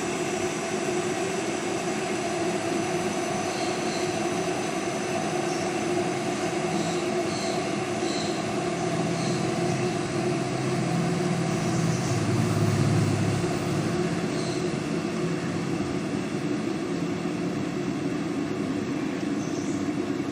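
Electric kettle heating water: a steady rushing hiss and rumble as the water comes up toward the boil, the kettle running on its refitted thermostat, which has not yet switched it off.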